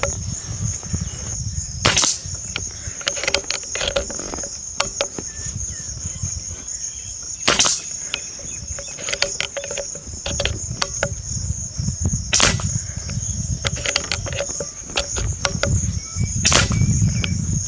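Diana Stormrider Gen3 PCP air rifle fired four times, about five seconds apart, each shot a sharp crack, with fainter clicks between shots. Crickets chirr steadily throughout.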